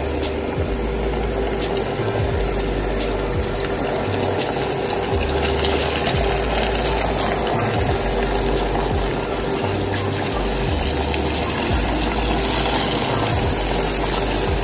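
Flour-coated chicken pieces deep-frying in a pot of hot oil: a steady sizzle and bubbling.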